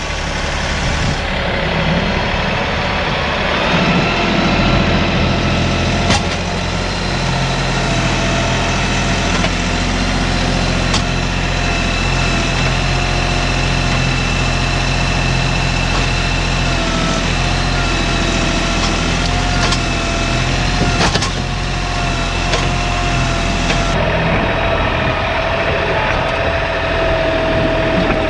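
Diesel tractor engine running steadily under work, with a steady high whine over the engine and a few sharp knocks.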